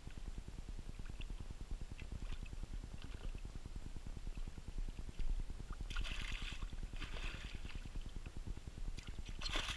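Hooked carp thrashing at the surface beside a boat, splashing and sloshing water against the hull, with louder bursts of splashing about six seconds in and again near the end, over a steady low rumble.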